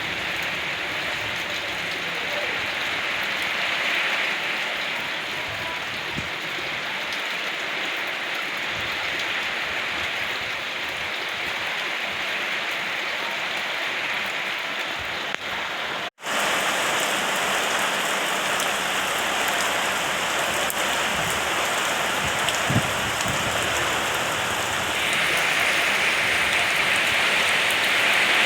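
Steady rain falling, with a split-second dropout about sixteen seconds in, where the recording cuts, and getting louder near the end.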